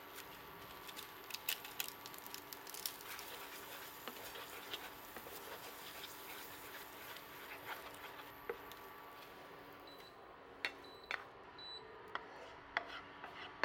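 Spatula stirring noodles in a non-stick pan: soft scraping and many small clicks over a steady hiss of the noodles cooking and a faint hum. After about ten seconds the hiss stops, and a few sharper clicks follow as the pan and spatula knock against a steel plate while the noodles are tipped out.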